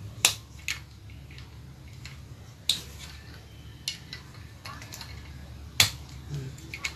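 Sharp clicks and snaps of a phone holder's small black clamp and ball-joint parts being pushed and fitted together by hand. There are about six clicks, the loudest just after the start and again about six seconds in.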